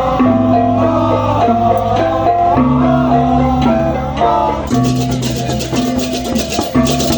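Music: a melody of held, plucked-string notes over a steady bass line, with a fast shaker rhythm joining about two-thirds of the way through.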